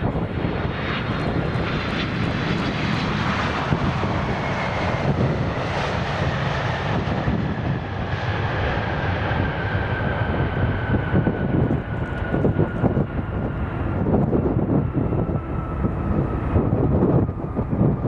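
Boeing 767-300 airliner landing and rolling out: a steady roar from its turbofan engines, with a whine that falls slowly in pitch as it passes and moves away. Irregular low rumbles of strong crosswind on the microphone come through in the second half.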